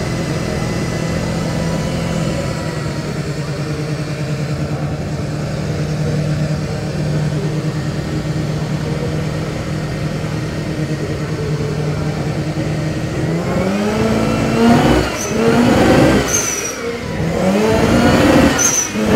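Turbocharged rotary engine swapped into a Datsun 510, idling steadily, then revved three times near the end, each rev climbing and falling back.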